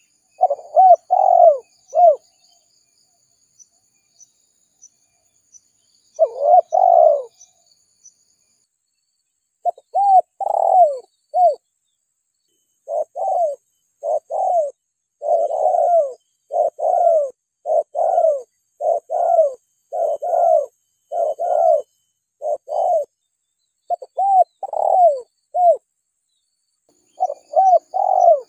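Spotted dove (tekukur) cooing in repeated phrases of short, low, falling coos. The first phrases come in separate groups a few seconds apart, and from about halfway through they run on almost without a break.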